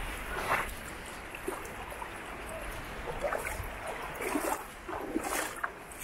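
Shallow seawater at the shoreline sloshing and trickling, with soft, irregular splashes about once a second.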